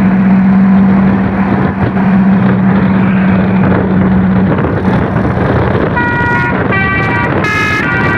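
Tour bus's telolet horn (basuri multi-tone horn) sounding three short pitched notes one after another near the end, over loud road and wind noise. A steady low hum runs through the first four and a half seconds, then stops.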